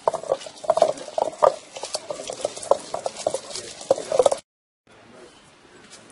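Stone pestle pounding small onions (shallots) in a granite mortar: a run of dull, moist knocks about three a second that stops about four and a half seconds in.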